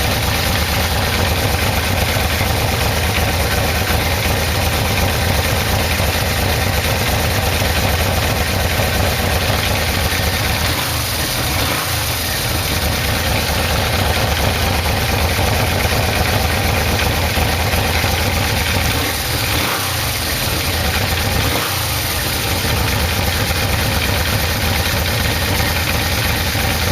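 Yamaha VMax V4 engine idling steadily, its carburettors being balanced, with a few brief slight dips in the note.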